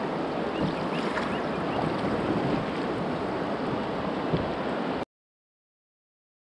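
Fast river current rushing around a kayak, with paddle blades dipping into the water. About five seconds in, the sound cuts out to dead silence.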